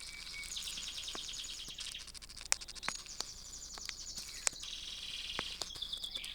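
Canary song from a singing-training recording played on a TV: several rapid rolling trills in a row, high-pitched, then a few short repeated chirps near the end. A few sharp clicks are scattered through it.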